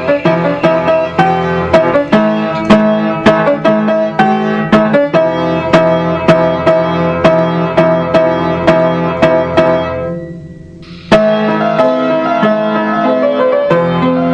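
Background music made of quick, evenly struck instrumental notes, fading out briefly about ten seconds in and then coming back suddenly.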